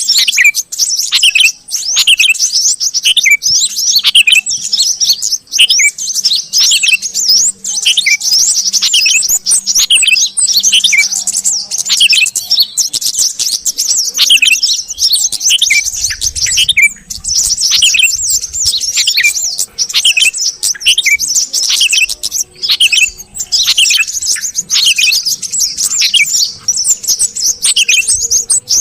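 Yellow-vented bulbuls and sooty-headed bulbuls calling together in a dense, busy chatter: a constant mass of high chirps with clear downward-sweeping calls repeating about once a second, used as a lure recording for small birds.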